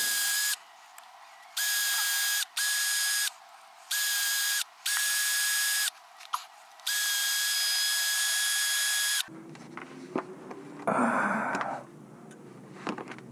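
Cordless drill spinning a wire wheel brush to scrub rust off bolts, run in about six short bursts of a steady high whine, the last one the longest. Quieter handling rustle follows.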